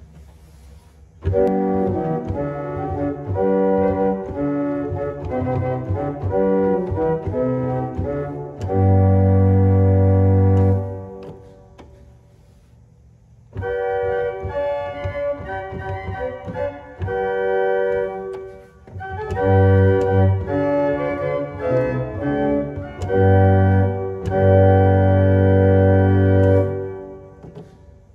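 1890 Roques pipe organ played on its first (Grand Organ) manual: two short passages of chords and moving notes, each ending in held chords, with a pause of about two seconds between them. The second passage sounds the Octava 4' (Principal 4') stop.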